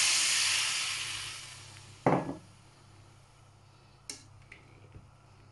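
Water poured into a hot pot of frying potatoes and fat sizzles loudly, the hiss dying away over the first two seconds as the pan cools. About two seconds in there is a single loud clank against the pot, followed by a few faint clicks.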